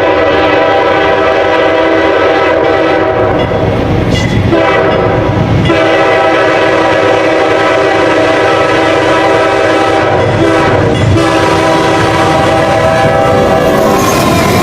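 Freight locomotive's multi-note air horn sounding a chord in several long blasts with brief breaks, stopping near the end, over the rumble of the passing train. The horn is a dubbed-in sound effect.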